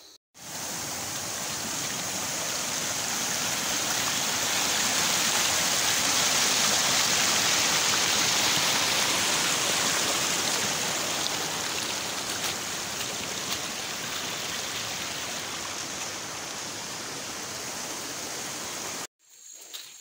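Small stream running down a narrow earth channel: a steady rush of water that swells to its loudest around the middle and eases off somewhat later. It cuts in just after the start and cuts off abruptly about a second before the end.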